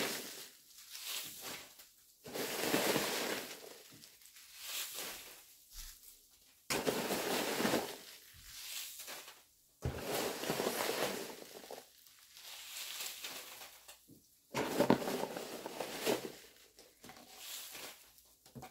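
Hands rummaging through loose corn-starch packing peanuts in a cardboard box, rustling in irregular bursts of a second or two with short pauses between.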